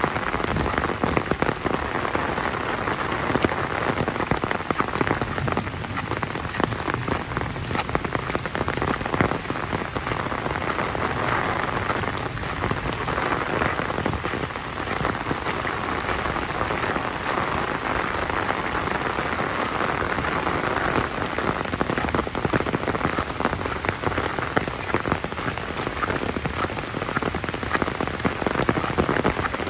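Steady rain falling, with a dense patter of individual drops striking surfaces.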